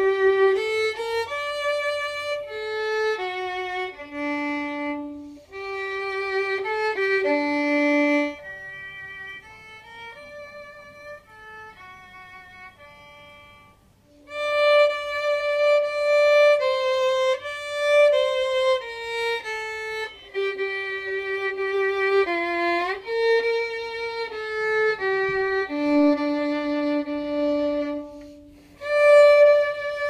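Solo violin playing a slow folk melody, one line of long bowed notes. It grows softer about a third of the way in and swells back up about halfway through.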